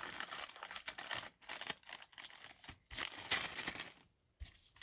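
Stack of baseball trading cards rustling and sliding against each other as they are handled in a gloved hand, in short irregular scrapes that stop about four seconds in.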